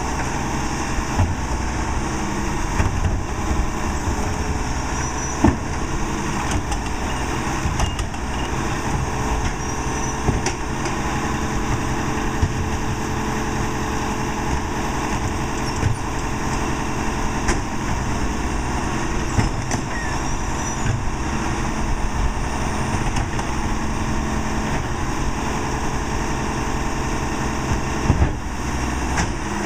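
Diesel engine of a Crane Carrier rear-load garbage truck with a Leach 2R-II packer body running steadily, with scattered knocks and bangs as wheeled trash carts are tipped into the hopper.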